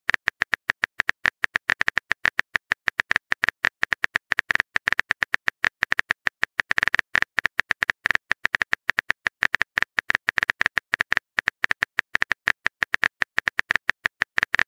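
Rapid typing clicks of a keyboard sound effect, roughly eight sharp clicks a second, keeping pace as a chat message is typed out letter by letter.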